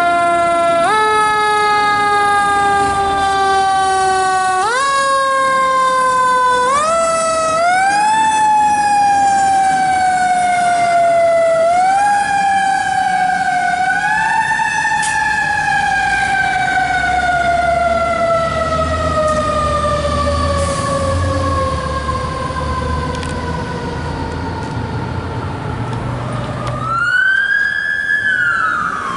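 A 2003 Seagrave Marauder fire engine's mechanical siren, wound up again and again in short quick rises, each followed by a slow slide down in pitch, then left to coast down in one long falling wail. Near the end a different siren gives one short rising and falling whoop.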